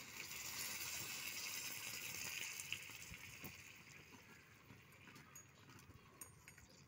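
Faint watery hiss from the sugar syrup (sugar, lemon juice and water) in a miniature pot on a small clay stove, fading after about three seconds, with a few light clicks.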